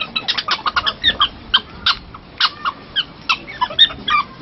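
Black-tailed prairie dogs in a crowded group giving many short, high squeaks and chirps, several a second and irregular, as they jostle together over food.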